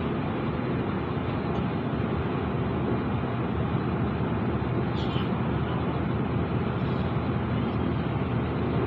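Mercedes-Benz Citaro diesel city bus running, heard from inside the cabin as it drives along: a steady drone of engine and road noise.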